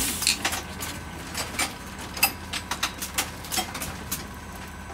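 Fully automatic ningyo-yaki making machine running: a steady mechanical hum with irregular clicks and clacks, a few a second, from its moving parts.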